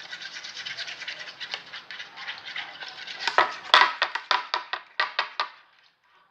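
Slime mixture being stirred fast in a bowl after borax is added: a quick run of short scraping strokes that grow louder and slower about three seconds in, then stop shortly before the end.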